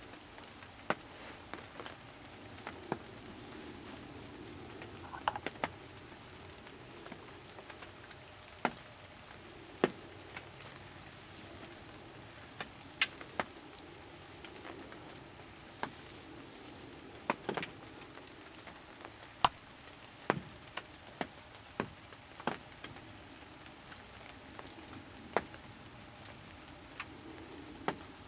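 Scattered sharp taps, one every second or two at uneven spacing, over a faint steady outdoor hiss.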